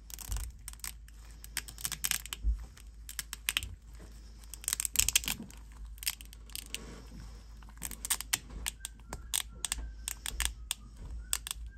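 Thin resin 3D-print support struts snapping and crackling as they are broken off by hand from a small printed model car body, in irregular flurries of sharp little cracks and clicks.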